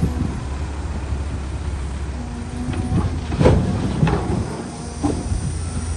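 Heavy diesel engines of a CAT 320C excavator and a dump truck running steadily, as a bucketload of soil and rocks is dumped into the truck's steel bed: a few knocks, then the loudest crash about three and a half seconds in, and one more knock near the end.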